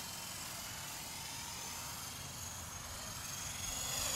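Modified Esky Honey Bee fixed-pitch electric RC helicopter in flight: the steady whine of its electric motors and rotors, the pitch wavering slightly as it manoeuvres and growing louder near the end.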